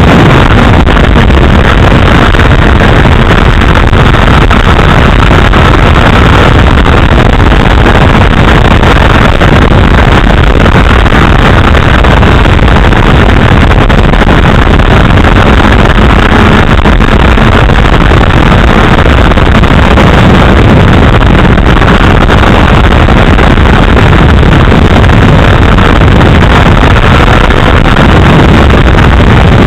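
Loud, steady wind rushing over a keychain camera's microphone on a moving sport bike, near the point of distortion, with the 2008 Honda CBR1000RR's inline-four engine running underneath it.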